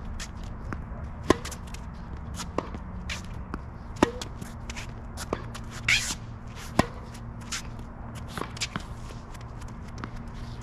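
Tennis rally at groundstroke pace: the ball is struck by racket strings and bounces in a regular run of sharp pops, about one every second and a half, with louder hits every other pop. Shoes scuff and squeak on the court, and the pops thin out after about seven seconds.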